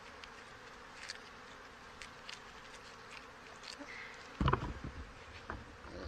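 Honey bees buzzing steadily around an open hive, with faint scattered clicks, and a louder, low-pitched burst of noise about four and a half seconds in.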